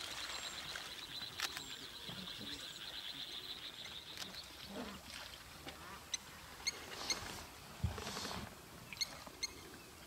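Outdoor wildlife ambience: a high, fast trill through the first four seconds, then a few short high chirps, with a brief low, noisy sound about eight seconds in.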